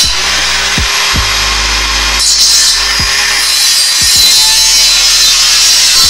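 Cordless angle grinder with a cut-off disc cutting through steel square tubing: a steady, loud, high grinding hiss that changes abruptly about two seconds in. Background music with a thumping beat runs underneath.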